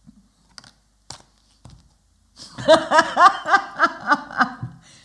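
A few soft clicks of tarot cards being handled, then about half way through a woman laughing aloud in a quick run of short rising pulses.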